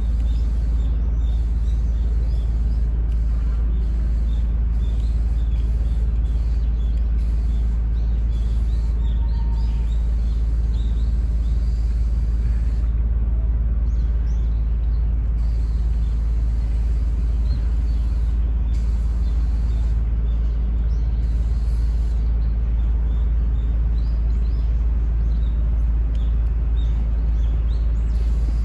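Steady low rumble, with small birds chirping faintly now and then.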